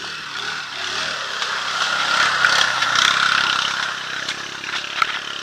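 Chevy Silverado pickup's engine running, with a rushing noise that swells to its loudest about halfway through and then fades.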